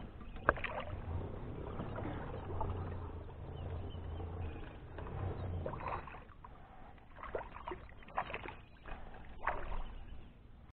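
Water sloshing and lapping against a plastic fishing kayak's hull as a freshly caught largemouth bass is let go beside the boat, with a sharp knock about half a second in. Later come scattered clicks and rustles of fishing line and a soft-plastic lure being handled on the kayak.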